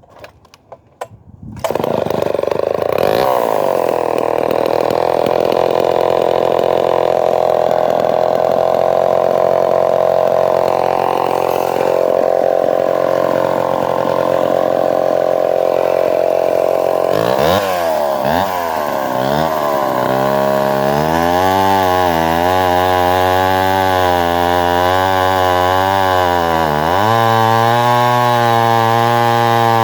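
Homelite Super 1050 Auto two-stroke chainsaw catching after a few clicks of handling, about two seconds in. It runs fast and steady for about fifteen seconds, then the revs swing down and up and it settles to a lower idle whose pitch wavers, with one brief rev near the end.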